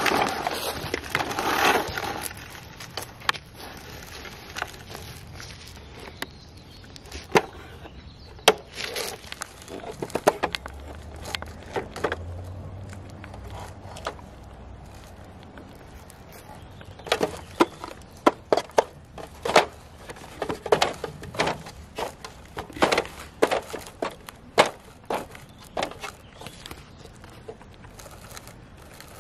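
Plastic Bruder toy street sweeper being handled on concrete as its hopper is tipped, with scattered sharp clicks and rattles of plastic parts and of small granules spilling onto the ground. The clicks come thick and fast in the second half.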